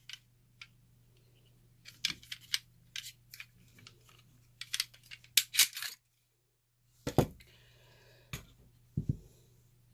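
Handling noises from pistol parts and gear being picked up and set down: scattered light metallic clicks and clinks. After a moment of silence come a few dull thumps.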